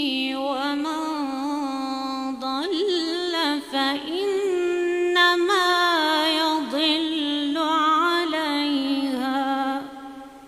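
A woman's solo voice chanting Quran recitation (tajwid) in the Moroccan style, drawing out a phrase in long, ornamented held notes with rising and falling turns. The phrase ends shortly before the end, with a fading echo.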